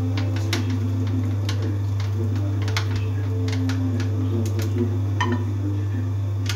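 A steady low hum with light clicks and clinks scattered through it.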